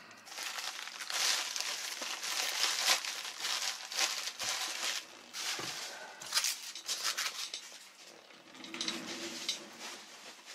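Plastic packing material, bags and bubble wrap, crinkling and rustling as it is handled and crumpled, in irregular crackly bursts that ease off near the end.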